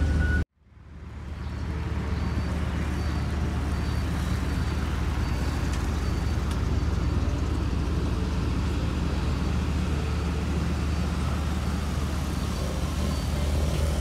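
Steady low hum of engines from road traffic and paving machinery, with a faint repeating high beep. The sound cuts out briefly about half a second in and swells back up over the next second or so.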